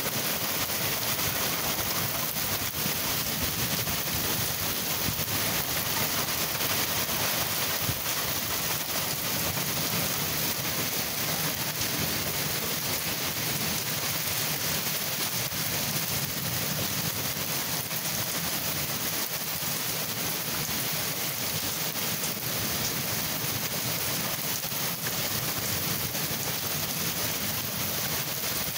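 Heavy rain falling steadily during a thunderstorm, with a low rumble of ongoing thunder underneath.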